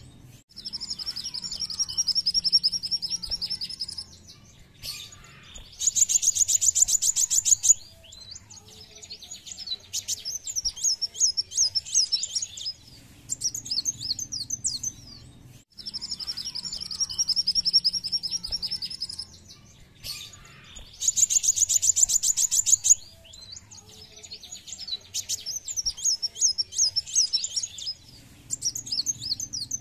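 Male Van Hasselt's (purple-throated) sunbird singing its lure song: a fast, even high trill, then a rapid buzzy chatter, then a run of varied sharp chirps. The whole phrase sequence repeats once about halfway through.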